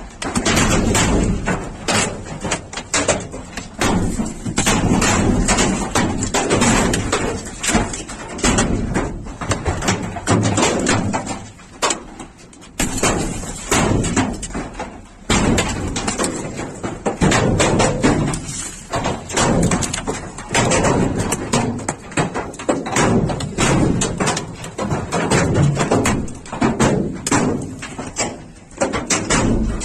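Large hailstones pelting down and striking hard surfaces in a dense, irregular clatter of sharp impacts, with a brief lull about twelve seconds in.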